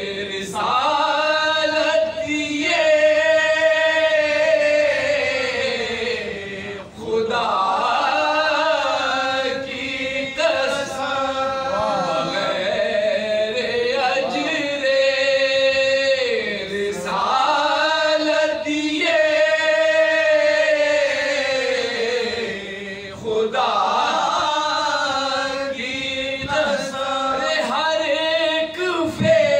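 Soz khwani: unaccompanied male voices chanting an elegiac salam, a lead voice with the others joining in on long, held, wavering notes.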